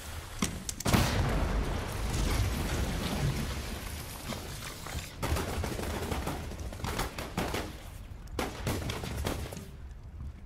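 Battle sound effects: a loud explosion about a second in, then a dense run of rifle and machine-gun fire, with separate single shots cracking in the second half.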